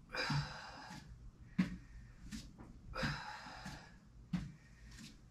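A woman breathing hard through a plank with shoulder taps: two long, noisy breaths, one right at the start and one about three seconds in, with a few soft taps in between.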